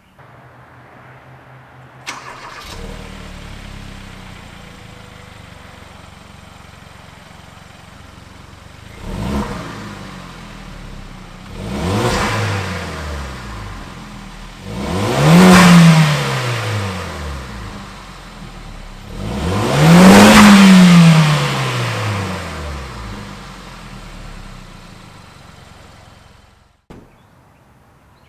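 Hyundai Veloster Turbo's turbocharged four-cylinder idling through its exhaust, then revved four times, each rev rising and falling in pitch. The third and fourth revs are the biggest and loudest.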